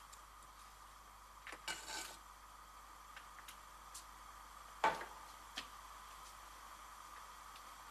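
A few light knocks of a knife and metal frying pan handled over a wooden cutting board, then a sharper clunk about five seconds in as the frying pan is set down on the table, with one smaller knock after. A faint steady hum runs underneath.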